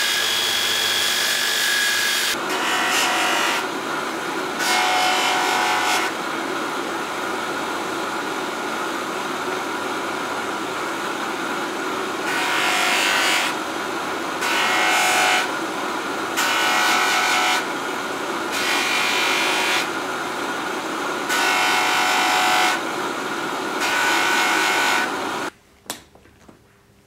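Belt grinder running with a whine while grinding a metal part of a sword handle, throwing sparks. Then a bench motor turning a cloth buffing wheel, its sound swelling about eight times as a handle part is pressed against the wheel. It cuts off near the end, leaving a quiet room and one small click.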